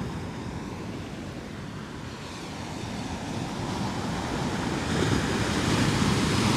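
Ocean surf: waves breaking and washing in, growing louder over the last few seconds as a wave rolls up. Some wind rumbles on the microphone.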